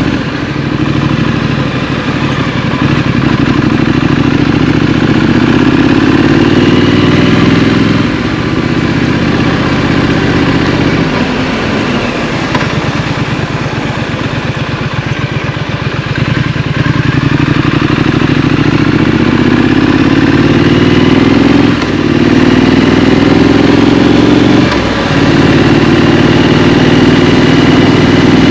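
Scrambler motorcycle engine running while riding through city traffic, revving up in several rising pulls as it accelerates through the gears, with a slower, low-revving, pulsing stretch about halfway through.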